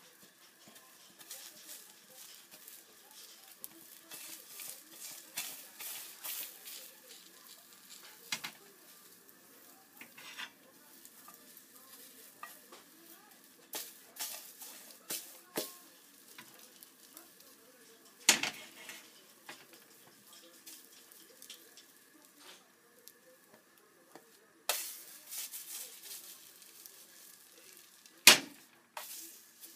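Egg frying in a pan over a gas burner, with irregular scraping and stirring of a utensil against the pan. Two sharp knocks of the utensil or pan stand out, about two-thirds of the way in and near the end.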